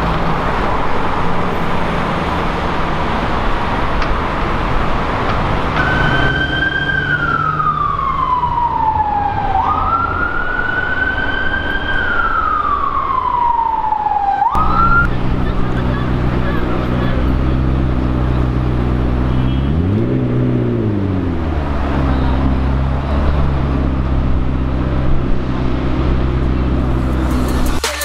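City traffic noise, then an emergency-vehicle siren wailing: twice it sinks slowly in pitch and then jumps back up. After a cut, a sports car's engine runs with a low steady note and one short rev about two-thirds of the way through.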